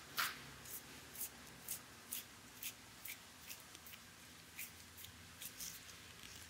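Faint brushing swishes of hands rubbing over skin in a hand massage, about two strokes a second, the first a little louder.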